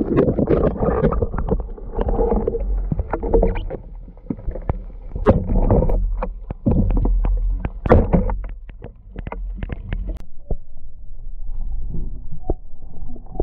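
Muffled rushing and churning of water over an underwater camera housing as a spearfisher swims up toward the surface. Sharp clicks and knocks of gear against the housing come through the middle, and the rushing turns quieter near the end.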